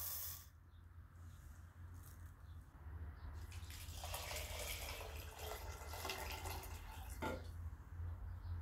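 Water poured from a ceramic pitcher onto raw rice in a copper pot, running for a few seconds before stopping with a short knock just past the seven-second mark.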